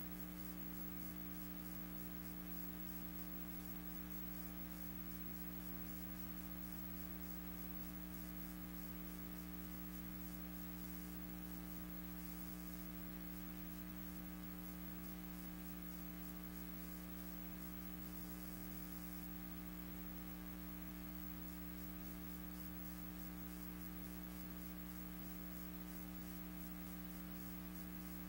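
Steady electrical hum made of several low, unchanging tones, with a faint hiss above it.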